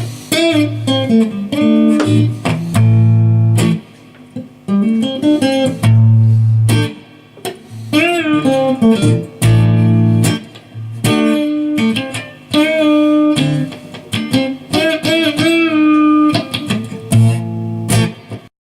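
Harley Benton CST-24 electric guitar played as a lead line of held single notes with frequent string bends and short pauses, cutting off abruptly near the end.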